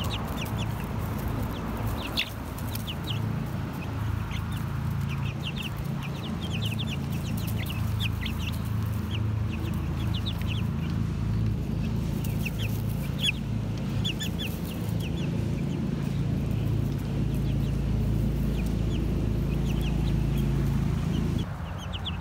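Young backyard chickens peeping and clucking: many short, high chirps in quick succession. A steady low hum runs underneath and drops away shortly before the end.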